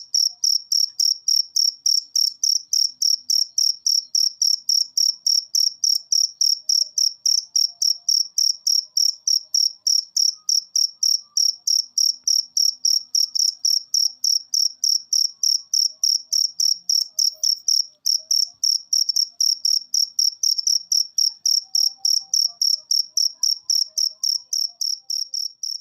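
Cricket chirping steadily: a fast, even train of high-pitched chirps, about four a second, all at the same loudness.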